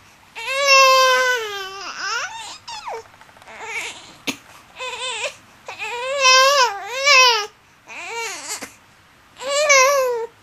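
Baby fussing and crying in frustration: a string of short, wavering cries with breaths between, the longest near the start.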